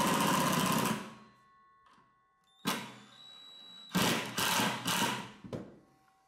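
Cordless drill/driver running in two bursts as it drives screws into plywood: the first stops about a second in, a click follows, and a second, stop-start burst of just over a second comes about four seconds in.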